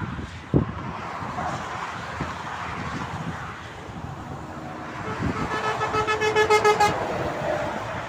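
A vehicle horn sounds for about two seconds, starting about five seconds in, as one steady pitched blast over the rush of passing highway traffic. There is a brief thump near the start.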